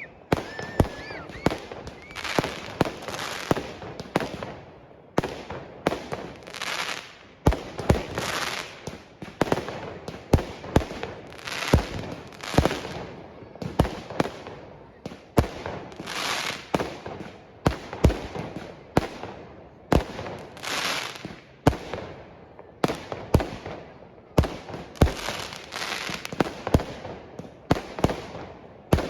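Fireworks display going off: a steady run of sharp bangs, about one a second, each followed by crackling and hiss as the shells burst.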